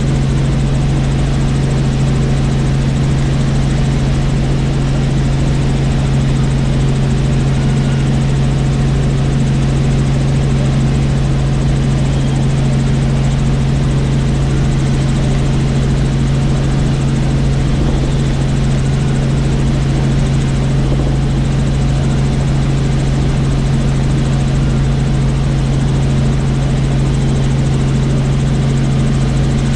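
Helicopter in flight: a loud, steady drone of rotor and engine with a strong low hum that does not change.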